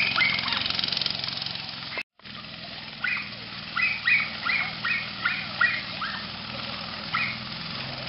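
Small off-road go-kart engine running at a steady hum, with a string of short, high, rising calls over it about three seconds in. The sound cuts out for a moment about two seconds in.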